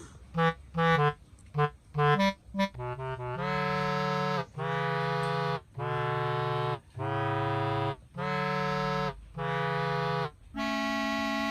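Background music: quick staccato notes for about the first three seconds, then a run of sustained chords about a second each, separated by short breaks.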